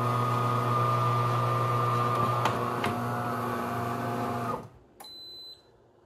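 De'Longhi Magnifica Evo automatic espresso machine running with a loud, steady hum as it pours frothed milk, stopping abruptly a little before the end. A short high beep follows.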